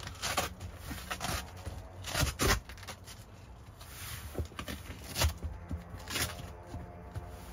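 Hands sliding and pressing a quilted cargo liner mat into place on a car's trunk floor: several scraping, rustling strokes, the loudest about two seconds in.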